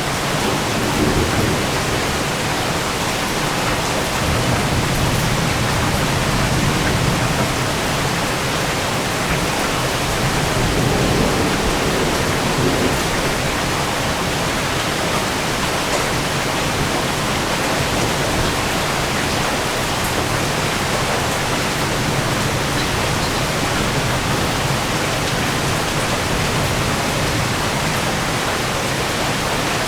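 Heavy rain pouring steadily in a severe thunderstorm, with a low rumble of thunder that dies away over the first dozen seconds.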